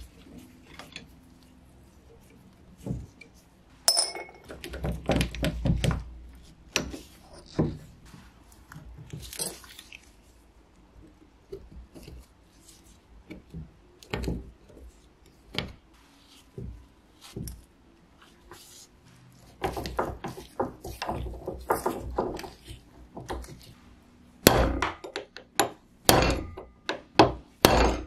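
Metal parts of an old hand drill being handled and worked on a wooden bench during disassembly: irregular clinks, scrapes and knocks, with a run of sharp knocks near the end.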